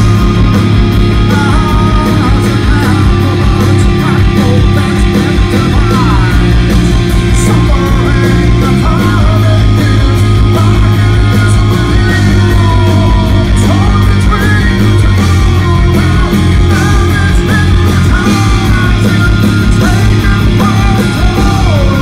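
Live rock band playing loud: distorted electric guitar, bass and drums, with a male voice singing over them. The full band comes in right at the start.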